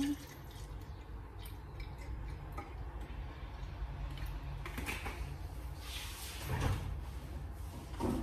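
Milk poured from a plastic bottle into a glass jar, a faint steady pour, with a few soft knocks about five, six and a half and eight seconds in.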